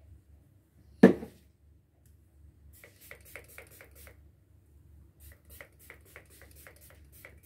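Grooming a small long-haired dog's coat: one sharp knock about a second in, then two runs of quick, short scratchy strokes, about four a second, as the hair is worked through.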